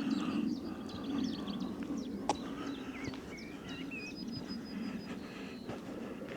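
Several small songbirds chirping and warbling over a steady low rumble, with one sharp click a little over two seconds in.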